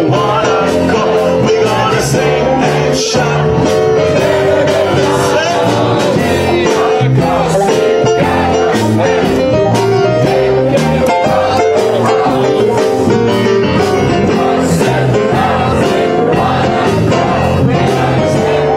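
Mixed choir singing a lively song over instrumental accompaniment with a steady beat.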